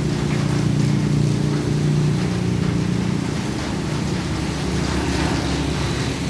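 A vehicle's engine running with a steady low hum that eases a little after the first couple of seconds, under the rush of rain and wet road noise.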